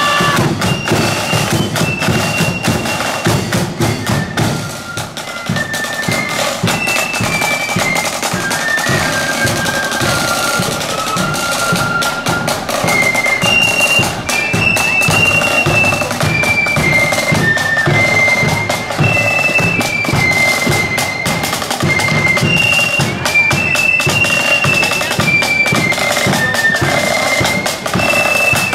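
Marching flute band playing: massed flutes carry a high stepping melody over side drums and a bass drum beating the march rhythm.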